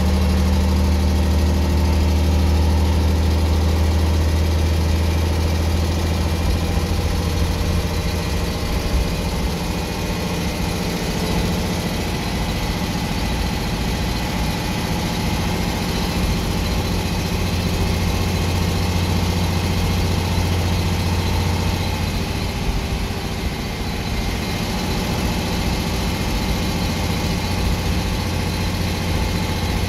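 Leyland National 2 single-deck bus's diesel engine heard from inside the saloon while the bus is under way, a steady low drone. The drone eases off after several seconds and builds again around the middle.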